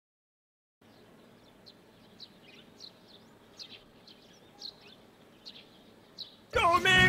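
Countryside ambience of sparse, short bird chirps over a faint background hiss, starting about a second in after silence. Near the end a much louder sound with a wavering pitch cuts in.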